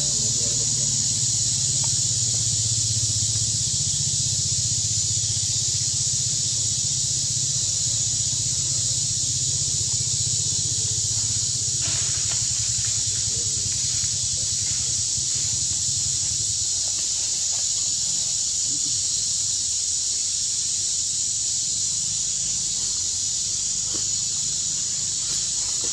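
Steady high-pitched drone of forest insects, with a low rumble underneath that fades out about two-thirds of the way through and a few faint clicks in the middle.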